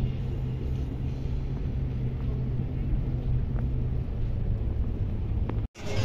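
A steady low rumble that drops out abruptly for a moment near the end.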